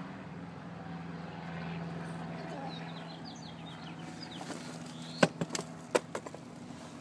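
Steady low hum of a car's cabin, with a handful of sharp clicks and knocks clustered about five to six seconds in.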